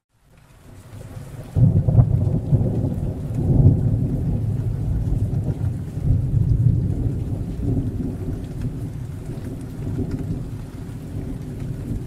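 Thunderstorm with rain: out of a moment's silence the sound swells, then about a second and a half in thunder breaks and rolls on as a long low rumble over the rain, slowly easing off.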